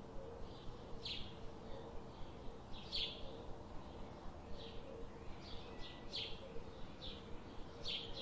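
Short, high bird chirps, each a quick downward sweep, repeating about once a second over a steady low hum.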